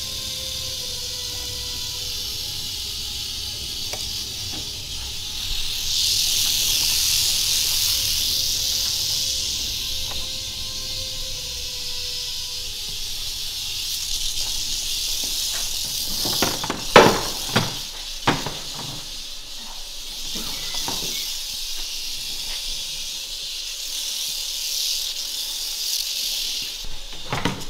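Rattlesnake rattling: a steady, high, dry buzz that swells louder twice. A few sharp knocks about two-thirds of the way through.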